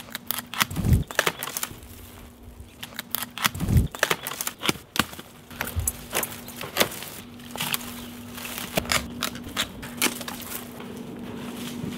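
Long-handled bypass loppers cutting through dry butterfly bush stems: a string of sharp, irregular cracks and clicks.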